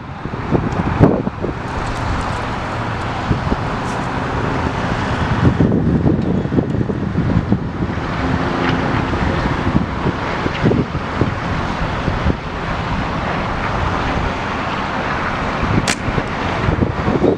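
Wind buffeting the camera microphone: loud, gusting rumble that rises and falls throughout. A single sharp click sounds about a second before the end.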